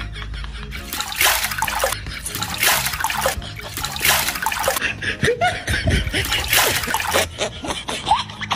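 Water poured from a mug over a person's head, splashing onto the body and a wet concrete floor, in about four pours of roughly a second each.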